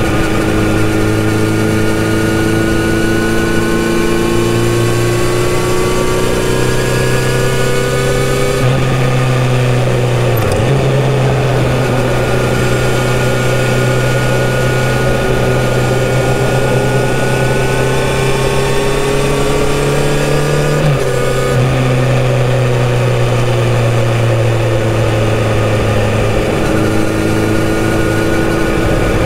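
Kawasaki Z900RS's inline-four engine running through a full-system exhaust while cruising in a road tunnel. The engine note slowly rises and falls, with sudden steps in pitch about nine seconds in and again about 21 seconds in.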